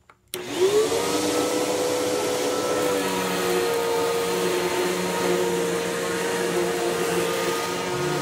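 Tornado CK14/1 Pro commercial upright vacuum switched on, its motor spinning up with a rising whine, then running steadily as it is pushed over carpet.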